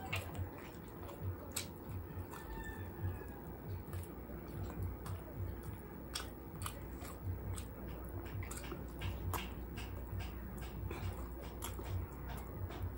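Close-miked eating of lechon manok (roast chicken) by hand: chewing and biting with frequent short, sharp wet clicks and smacks throughout, over a steady low hum.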